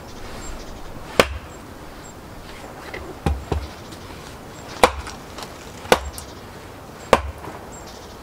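Firewood being split on a wooden chopping block with a hand-held splitting tool: about six sharp chopping strikes, two of them in quick succession about three seconds in.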